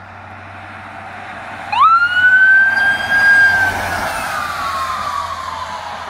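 Ambulance approaching, its road noise growing louder. About two seconds in its siren starts with a quick upward sweep, holds a high note as it passes close by, then slides slowly down in pitch.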